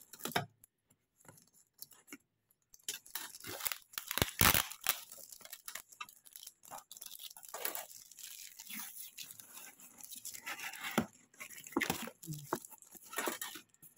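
Cardboard shipping box and its packing tape being torn open by hand. Irregular tearing noises start about three seconds in after a nearly quiet start, and are loudest around four and a half seconds in.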